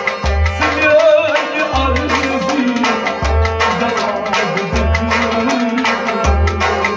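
Kashmiri Sufi kalam played on harmonium and Kashmiri rabab, with a male voice singing the melody and deep drum strokes about every one and a half seconds.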